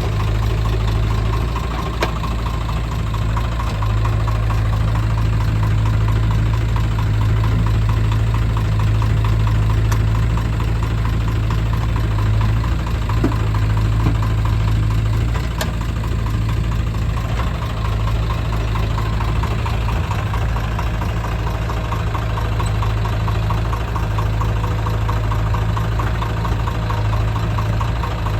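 Diesel engines of a backhoe loader and a tractor running steadily, with a low, even hum and a few faint clicks.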